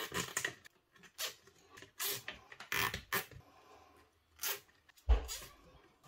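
Nylon zip ties being pulled tight around bundled PC power cables, giving a string of short rasping zips as the cables are handled. A dull thump about five seconds in is the loudest sound.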